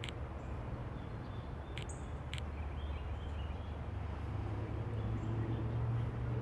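Mockingbirds singing faintly, with short high chirps over a steady low rumble that is louder than the birds. A few sharp ticks come near the start and about two seconds in.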